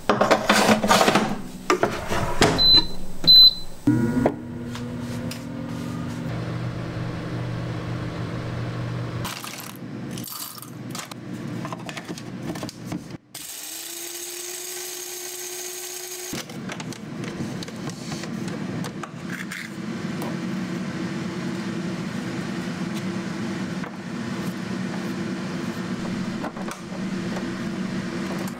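Kitchen appliances at work. There is clattering at first and two short electronic beeps from an appliance's controls about three seconds in, then a steady motor hum, a brief separate whirring, and a long steady machine hum through the rest.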